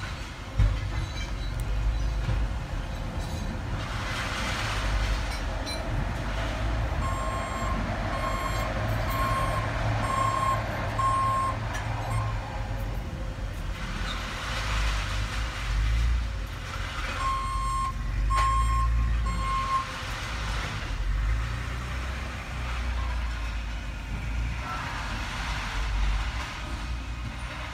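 A vehicle's backup alarm beeping about once a second in two runs, first about six beeps and then about four, over the steady low rumble of a heavy engine running. A single thump sounds just after the start.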